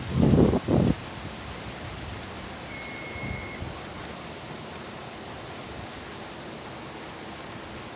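Steady rush of stormwater runoff flowing through a drainage channel after rain. Loud low rumbling blasts fill the first second, and a brief high whistle sounds about three seconds in.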